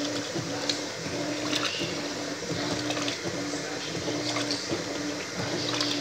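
Electrolux Turbo 12 kg top-loading washing machine agitating a soaked load. The motor hums with each stroke and pauses briefly as the agitator reverses, about once every three-quarters of a second, while water sloshes in the tub.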